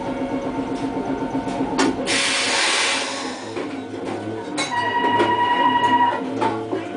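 Streetcar standing at a stop with its equipment running in a fast mechanical rhythm. About two seconds in comes a hiss of released compressed air lasting a second and a half, and about five seconds in a steady electronic tone sounds for about a second and a half over a low pulsing hum.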